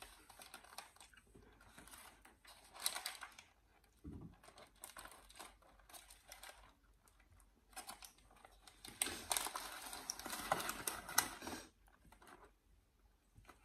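Paper sandwich wrapper crinkling as the sandwich is held and bitten into, with faint chewing. The rustling comes in bouts, the busiest one about three seconds in and a longer one from about nine to eleven seconds.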